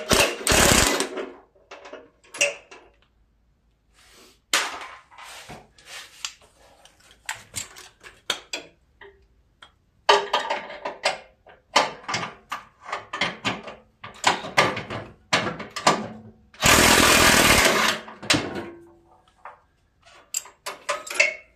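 Impact wrench running a nut off a mower-deck bolt in short bursts, one at the very start and a solid one-second burst about 17 seconds in, with scattered clinks of the hand wrench and loose hardware in between.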